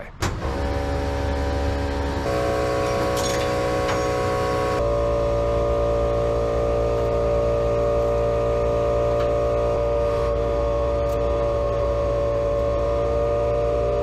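Background music: sustained chords that change every couple of seconds, over a low steady rumble.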